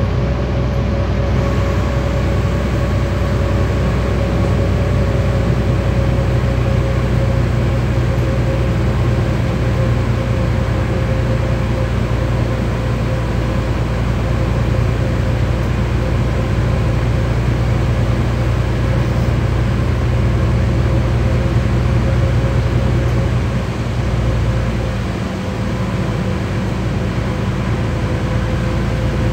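Solaris Urbino 12 IV city bus under way, heard from inside: a steady drivetrain hum with a faint whine over a wash of tyre noise on a wet road. The sound dips briefly about 24 seconds in, then goes on as before.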